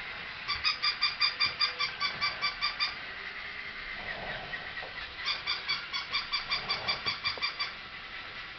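Battery-operated pink plush toy dog playing its electronic yapping sound: two runs of rapid, evenly spaced yaps at one fixed pitch, about six a second, each run lasting over two seconds, the second starting about five seconds in.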